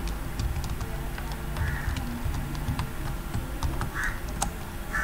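Computer keyboard typing: a few scattered, irregular keystrokes with short pauses between them.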